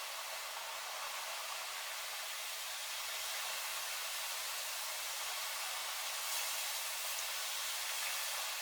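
Heavy rain falling in a storm with strong wind: a steady, unchanging hiss.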